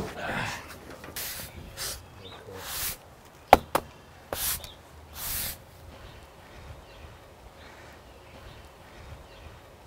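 Push broom sweeping sawdust off the freshly sawn face of an elm log: about five short bristle swishes over the first five or six seconds. Two sharp knocks about three and a half seconds in are the loudest sounds.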